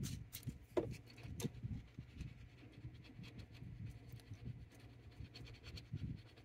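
Cotton swab scrubbing the dirty window of an opto sensor on a pinball circuit board: faint, irregular scratching with small ticks and handling knocks, a sharper tick about a second in.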